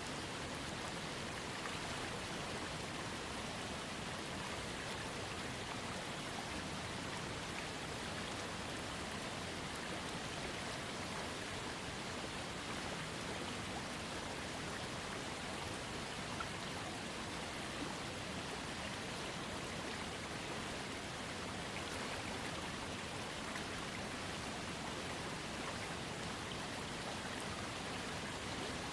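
Small waterfall on a trickling creek, its falling water making a steady, even rush and splash.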